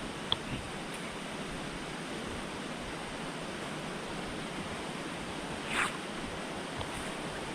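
Steady rush of a waterfall pouring into a rock pool, with one brief sharper splash-like noise about six seconds in.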